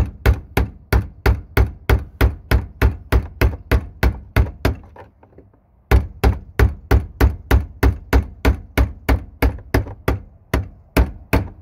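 Hammer steadily tapping a dull chisel against the fuel pump lock ring, about three sharp strikes a second, driving the stuck ring round to loosen it. The strikes pause for about a second around five seconds in, then go on.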